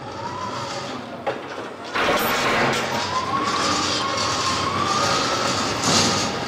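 A motor whining over a steady rushing noise, its pitch gliding slowly up and down, and louder from about two seconds in.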